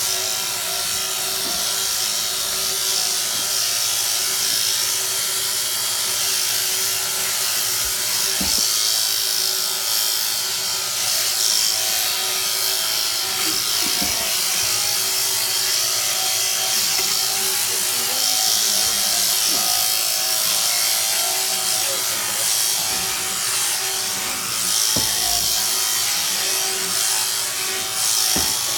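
Electric sheep shears running steadily while shearing a sheep: a constant motor buzz from the handpiece as the cutter works through the fleece.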